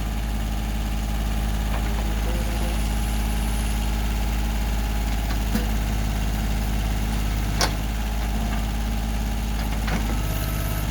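Diesel tractor engine running steadily at idle, with a few short sharp knocks, the loudest about seven and a half seconds in.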